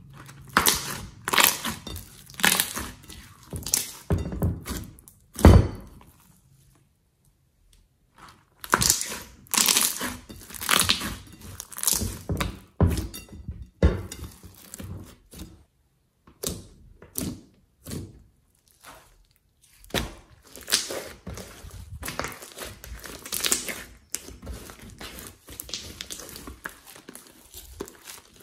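Thick slime being squeezed, stretched and poured by hand, giving irregular wet clicks and crackles, with a heavy thud about five seconds in. There is a brief silent pause about two seconds later.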